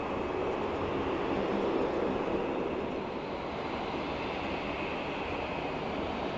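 Steady rumble and hiss of a Boeing 787-10's jet engines as the airliner taxis, with a faint high whine above it.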